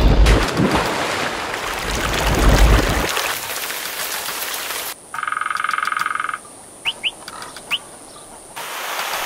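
Edited sequence of nature sounds: a rush of water with a low rumble for about three seconds, fading to a softer hiss, then a pulsing animal trill about five seconds in, then a few short bird chirps.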